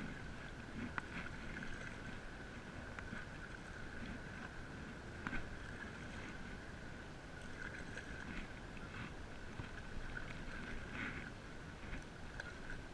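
Stand-up paddle strokes: the blade dipping and pulling through lake water with soft splashes and drips, a stroke every second or two. A steady faint high-pitched tone runs underneath.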